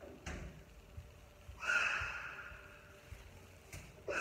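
Kitchen handling noises: a soft thump just after a refrigerator door is shut, then a brief, louder squeaky rustle about a second and a half in, and a single click near the end.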